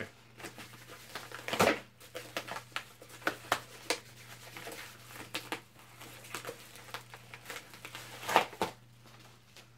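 A yellow padded mailer being pulled and torn open by hand: paper and plastic crinkling and rustling in quick irregular crackles, with two louder tearing sounds, one about a second and a half in and one near the end.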